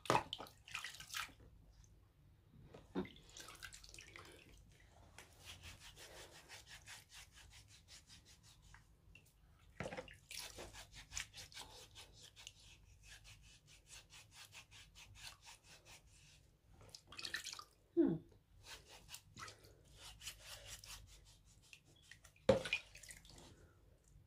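Wet feet being scrubbed in a basin of water, by hand and with a bristle foot brush: runs of quick, even rubbing strokes, with drips and a few louder splashes, the loudest about three-quarters of the way in and near the end.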